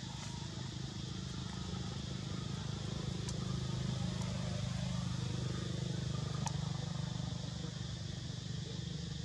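A steady low engine drone that swells slightly around the middle, with a few faint clicks.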